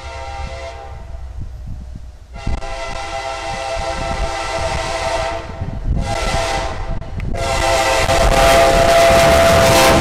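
CSX diesel locomotive's air horn blowing as the train passes: the tail of one blast, then a long blast, a short one and a final long blast that is the loudest, the long-long-short-long pattern of a grade-crossing signal. A low rumble of the moving train runs underneath.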